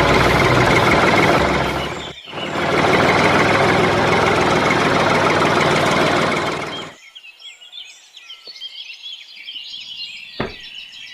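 A motor or engine running loudly and steadily, dipping briefly about two seconds in, then cutting off suddenly about seven seconds in. After that, faint bird chirps and one sharp knock near the end.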